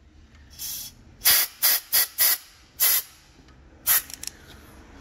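Compressed-air blow gun fired in about seven short hissing blasts, several in quick succession, blowing out an alternator wiring-harness connector freshly cleaned with electrical contact cleaner.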